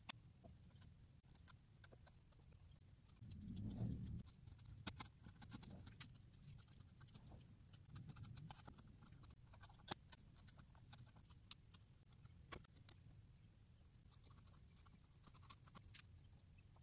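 Faint, scattered clicks and scratches of a hand carving blade cutting into walnut, with a low thump a little under four seconds in.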